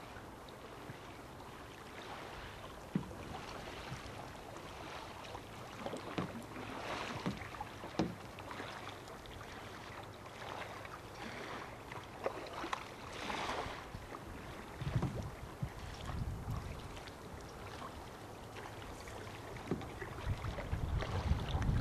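Kayak paddle strokes swishing and splashing in river water, over a steady hiss of moving water. In the second half, wind now and then rumbles on the microphone.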